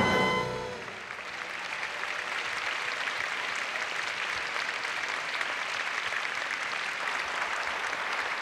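The band's final chord rings out and stops within the first second, then a large audience applauds steadily.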